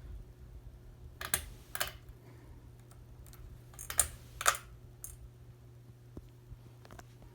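For Living Nordica ceiling fan's motor humming steadily, with two pairs of sharp clicks, each pair about half a second apart, about a second in and again near the middle.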